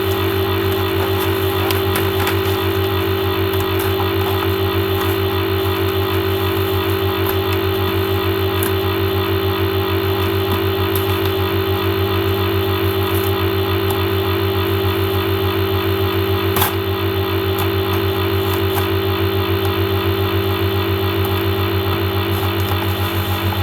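Steady, loud mechanical hum with a fast, even flutter, with a few faint clicks and one sharper click about two-thirds of the way through.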